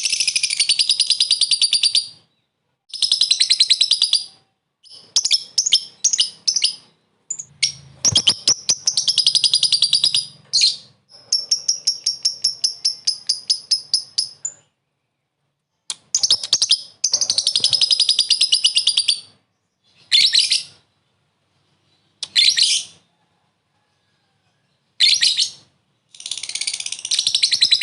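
Lovebird giving its long chattering trill (ngekek), the rival-calling call used to set other lovebirds off. It comes in high-pitched bursts broken by short silences, including one run of fast, evenly repeated clipped notes, and the bursts grow shorter toward the end.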